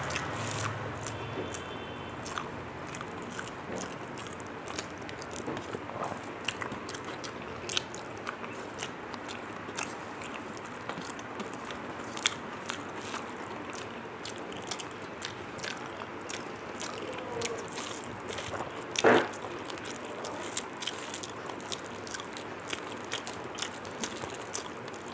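Close-up chewing of a mouthful of rice and curry: a steady run of small wet clicks, crunches and smacks, with one louder mouth sound about nineteen seconds in.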